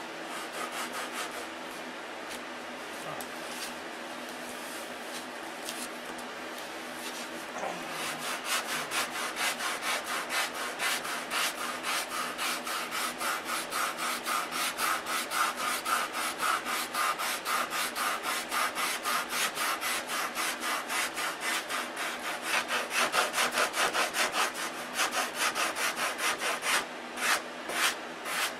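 Hand sanding a balsa wood block wingtip with sandpaper: a dry rasp of quick, even back-and-forth strokes, light at first, then harder and louder from about eight seconds in.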